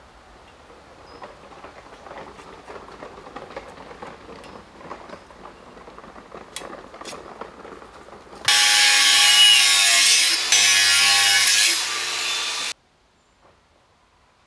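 A power tool cutting into steel, loud and steady for about four seconds with a short dip in the middle, starting and stopping abruptly. Before it, quieter scraping and handling noises.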